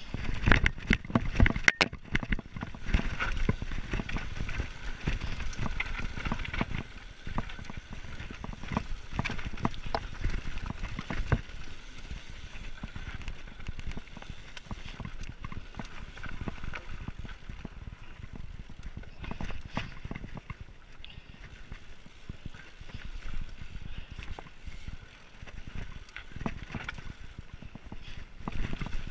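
Mountain bike riding down a rocky dirt singletrack: tyres crunching over gravel and stones while the bike rattles and knocks on every bump. The hardest knocks come in the first couple of seconds.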